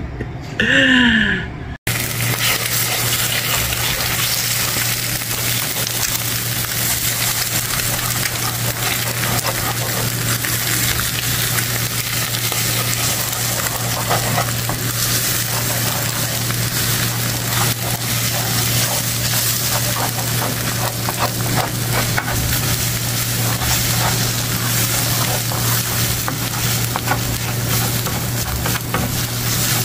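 Eggs sizzling as they are scrambled in a coated frying pan, with a wooden spatula stirring and scraping the pan bottom in many small clicks. It starts about two seconds in, after a brief voice, over a steady low hum.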